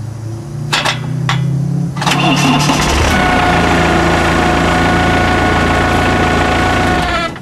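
3.5-litre four-cylinder Perkins diesel cranked on its starter motor, catching about two seconds in and then running loudly and steadily, with a steady whine over the engine note.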